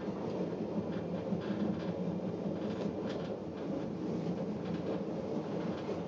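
Metre-gauge electric train of the Bière–Apples–Morges line running on the track, heard from inside the carriage: a steady rumble of wheels on rail with a few faint rattles.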